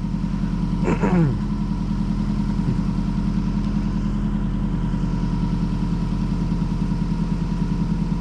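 2010 Subaru WRX's turbocharged flat-four engine idling steadily with an even pulse. A brief falling-pitch sound cuts in about a second in.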